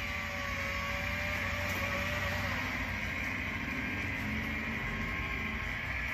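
HO scale model train running on the layout track: a steady electric-motor hum and wheel noise. A faint steady tone heard over it fades out about two and a half seconds in.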